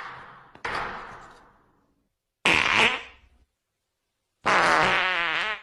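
Three fart sound effects in a row. The first is a short noisy blast that trails off; the second and third are buzzy, wavering farts, and the last runs about a second.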